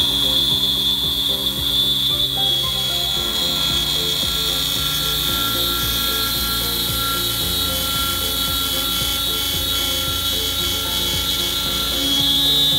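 Tormach PCNC 770 CNC mill spindle at 5000 RPM driving a quarter-inch three-flute carbide end mill through a metal block in an adaptive clearing pass, a steady high-pitched whine.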